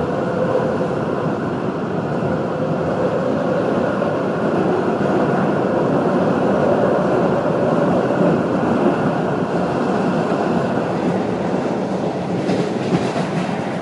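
MBTA Blue Line subway train running along its tracks, heard from inside the front car: a steady rumble of wheels on rail with a faint whine, and a few sharper clacks near the end as an oncoming train passes close alongside.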